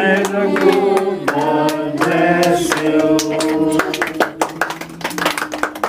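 Group of voices singing a birthday song together, with hand clapping throughout; the singing thins out near the end.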